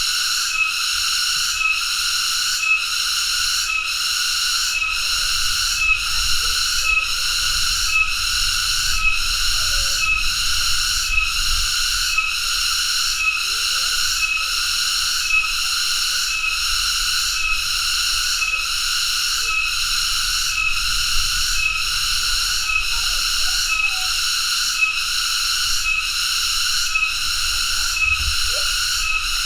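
Cicada (tonggeret) singing: a loud, continuous high-pitched buzz that pulses at an even rhythm, about three pulses every two seconds.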